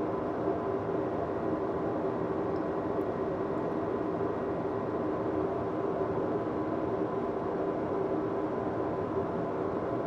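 Train engine idling: a steady, unchanging hum with a constant drone.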